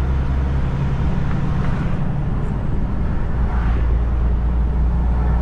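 Diesel engine of a heavy-haul semi-truck running steadily at cruising speed, heard from inside the cab as a low drone with road noise.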